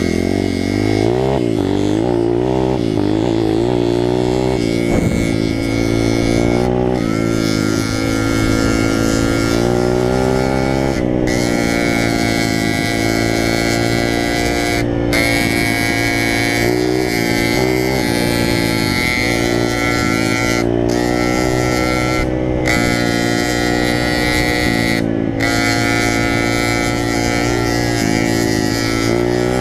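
Small off-road motorcycle engine running hard, its pitch climbing and dropping back again and again as the rider works the throttle and shifts gears. A few very brief breaks in the sound occur along the way.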